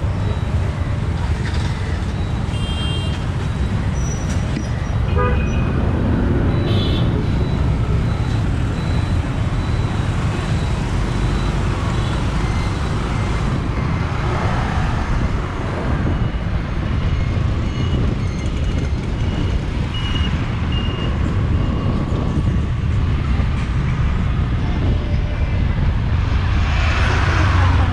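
Motorcycle riding through busy town traffic, its engine and the wind making a steady low rumble on a bike-mounted action camera. Other vehicles pass, and horns toot briefly now and then. The noise grows louder near the end.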